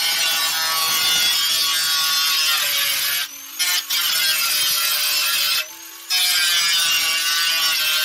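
An angle grinder with a metal-cutting disc cuts through the rusty sheet-steel body of an old wood stove: a loud, steady high whine with a grinding rasp. It drops away briefly twice, about three and a half and six seconds in.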